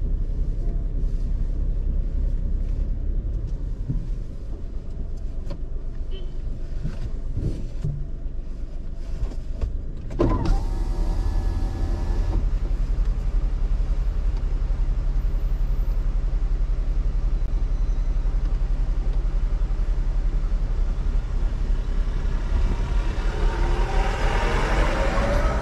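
Steady low rumble of a car running slowly, heard from inside the cabin. About ten seconds in, an electric window motor whines for about two seconds and stops abruptly.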